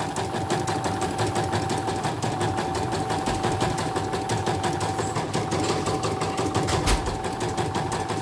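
CNY portable computerized embroidery machine stitching a design: rapid, evenly spaced needle strokes over a steady motor whine, with one sharper knock about seven seconds in. It is a test run after repair, running smoothly now that it has a new presser foot.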